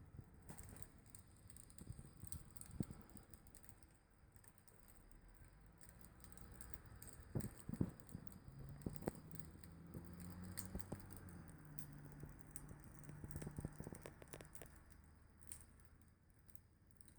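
Wood fire crackling: irregular quiet pops and snaps over a soft hiss, with a couple of sharper cracks about three and eight seconds in. A faint low drone sits under it through the middle.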